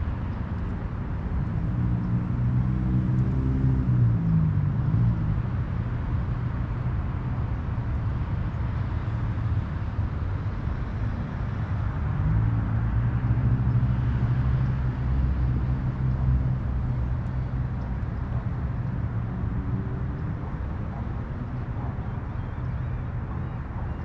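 Motor vehicle engines in the distance: a steady low rumble, with an engine note swelling and bending in pitch as something passes a few seconds in, again about halfway through, and more faintly near the end.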